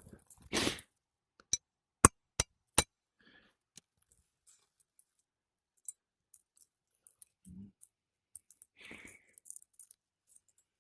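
A short scrape, then four sharp metallic clinks in quick succession, the second the loudest, from metal hand tools or nails being handled while shingles are worked loose; after that only faint scattered ticks.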